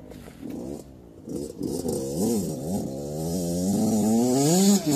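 Dirt bike engine revving up and down through the gears, growing steadily louder as it approaches.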